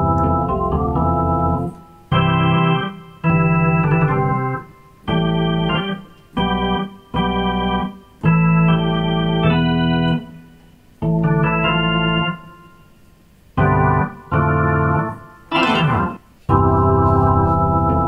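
Playback of a recording of an electronic keyboard: a series of held chords, each sounding at an even level and cutting off cleanly, with a swooping glide in pitch near the end.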